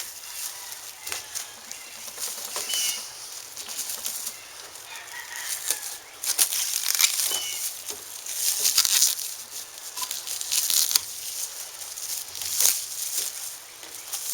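Packing wrap rustling and crinkling in repeated irregular bursts as it is pulled off a freshly coated fuel tank.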